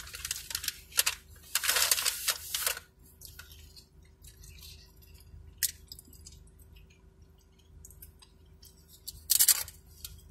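Tortilla chips being crunched and chewed: a stretch of crinkling and crunching in the first three seconds, then quiet with a few faint clicks, and a loud crunch of a bitten chip near the end.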